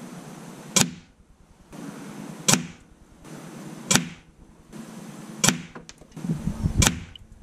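Five sharp shots from a .177 Anschutz 9015 PCP air rifle firing slugs at a 25-yard target card, about a second and a half apart.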